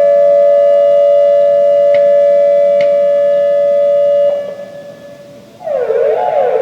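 Hörmann/ASC ECN1800 electronic warning siren sounding the steady alert tone, which cuts off about four seconds in and fades away. After a short lull the wail starts near the end: a tone sweeping up and down about once a second.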